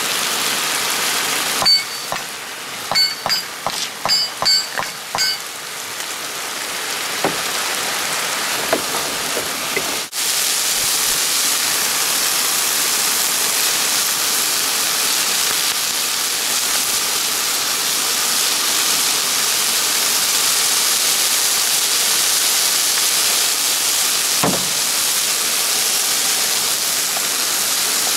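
Ground beef and onions sizzling in a hot skillet on a gas camp stove, a steady hiss. A quick run of light clicks and taps comes a couple of seconds in.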